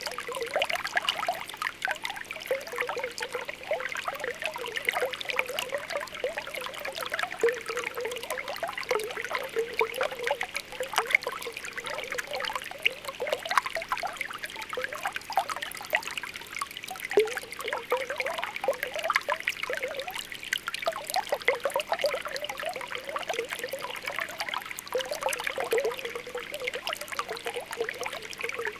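Spring water welling up from the ground, with a continuous stream of small irregular bubbling pops over a steady trickle.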